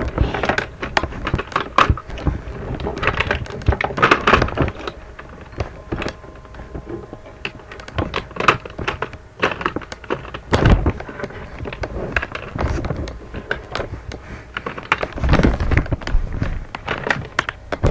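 Irregular clicks, knocks and rattles of plastic makeup tubes and a plastic drawer being handled on a desk, mixed with low thumps and rubbing as the webcam is moved.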